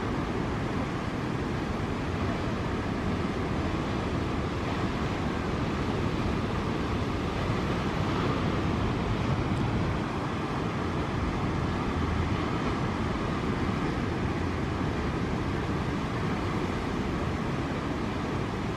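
Steady noise of ocean surf breaking, mixed with wind on the microphone.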